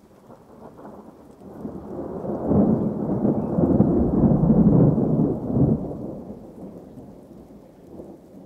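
A low, rolling thunder-like rumble that builds over the first couple of seconds, is loudest in the middle, then dies away.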